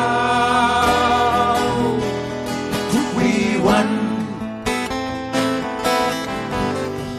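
Band music led by acoustic guitar strumming. A long held, wavering melody note sounds for the first two seconds, and the music grows gradually quieter.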